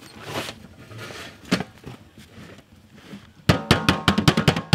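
A rapid drum roll starts about three and a half seconds in, after a few scattered knocks.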